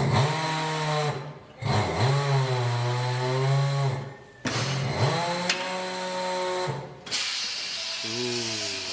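A power tool running in three bursts of one to two seconds each, its pitch steady with shifting overtones, followed near the end by a loud hiss of air.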